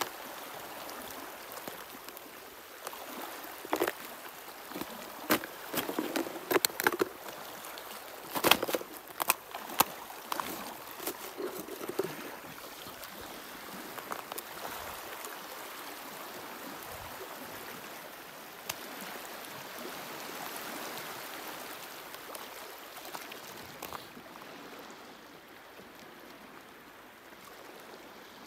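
Small waves lapping at the edge of a partially frozen lake: a steady wash of water broken by irregular sharp splashes and slaps, most of them in the first half.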